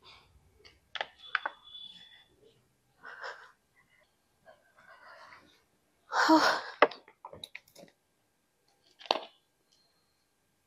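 A woman sighing and breathing heavily, with scattered small clicks and rustles. The loudest sound is a long breathy exhale about six seconds in.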